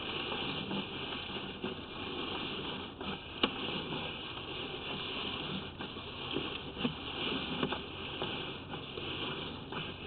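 A sewer inspection camera's push cable being worked through the lateral: a steady hiss with scattered light clicks and knocks, one sharp click about three and a half seconds in.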